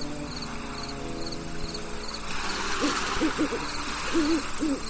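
Crickets chirping: a steady high trill with short chirps repeating about twice a second, over a soft sustained music drone. A few short, low wavering calls come in the second half.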